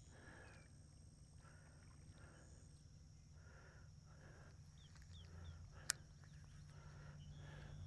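Near silence: faint outdoor ambience with a soft animal-like call repeating roughly once a second, a few faint chirps, and one sharp click about six seconds in.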